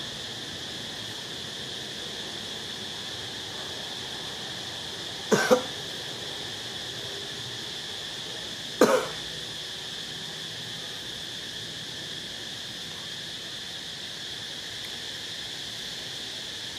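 A person coughing: a quick double cough about five seconds in and a single cough about three seconds later, over a steady high background hiss.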